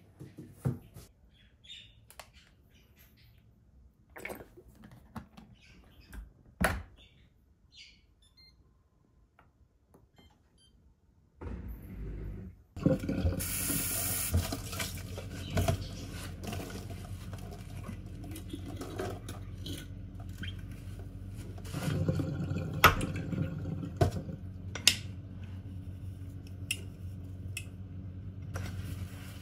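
Scattered light clicks and knocks, then from about twelve seconds in a kitchen tap runs steadily into the sink, with dishes and pans knocking against it now and then.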